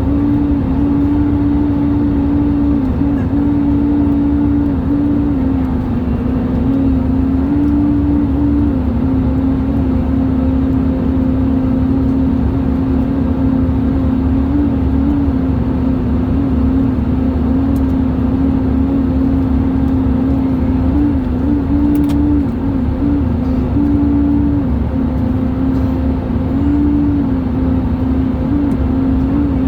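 Airbus A320 cabin noise in flight: a steady low rumble with a loud, strange hum whose pitch wavers and shifts slightly up and down.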